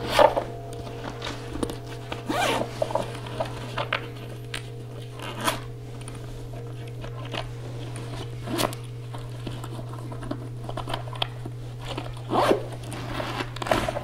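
Zipper on a soft black bag pulled in several quick rasping strokes, with fabric handling noises between them, over a steady low hum.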